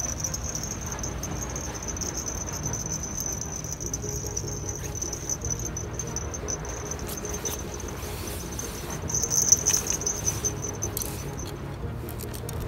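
An insect trilling steadily on one high note, stopping about eleven seconds in, over a low rumble. A few clicks near the end.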